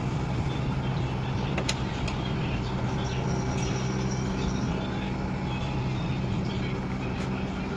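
Steady low machine hum from a running motor, with a few faint clicks over it.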